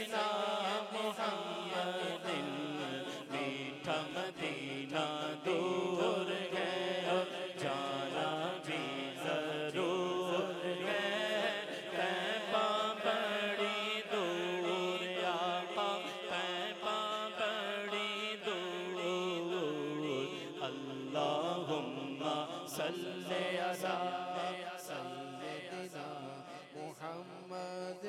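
A man's voice singing an Urdu naat into a microphone in long, drawn-out melodic phrases, over a steady low drone. It grows a little softer near the end.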